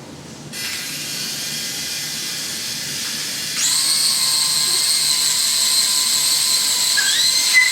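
Small electric motor and propeller of a hand-controlled flying pixie toy spinning with a steady high whine, which gets louder and higher about three and a half seconds in as it speeds up.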